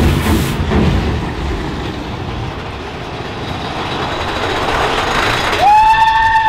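Big Thunder Mountain Railroad roller-coaster train rumbling along its track, the noise building into a rushing sound. About five and a half seconds in, a long high wail rises in, holds steady for about a second and a half, then falls away.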